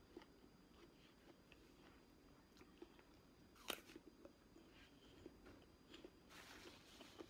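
Faint mouth sounds of a person chewing soft fruit chunks, with small wet clicks and one sharper bite sound about halfway through.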